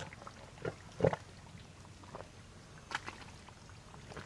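Thick wet mud squelching and sucking as hands dig into it: a few short, separate squelches, the loudest about a second in.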